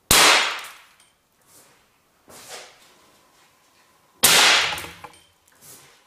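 Two loud, sharp bangs about four seconds apart, each dying away over about half a second, with fainter knocks between: the pyrotechnic charge of a seatbelt pretensioner firing.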